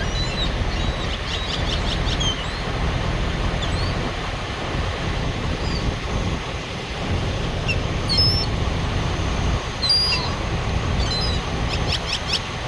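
Small songbirds chirping in short high calls, with two quick runs of rapid chirps, about a second in and near the end. A steady low rumble lies underneath.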